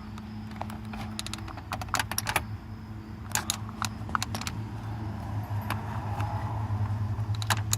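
Small sharp plastic-and-metal clicks and scrapes in scattered clusters as a pick tool pries at the headlight switch and its retaining clip in a GMC Sierra dash, over a steady low hum.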